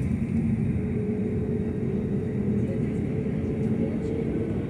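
Airliner jet engines running at low power, heard inside the cabin: a steady low rumble with a steady hum.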